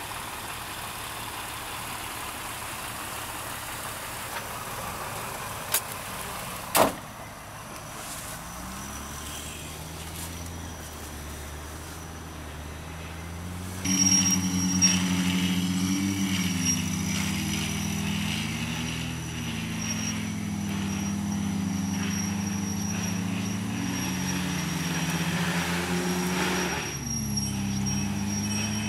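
Off-road 4x4 engine running and revving, its pitch rising and falling. It comes in about a third of the way through and grows louder around halfway. Earlier there are two short sharp knocks, the second the loudest sound of all.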